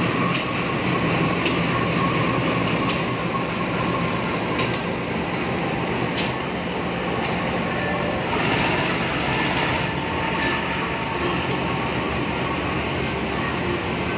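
A GE CC 201 diesel-electric locomotive runs slowly along the track while being shunted, with a steady engine rumble and hum. Sharp clicks come roughly once a second over it.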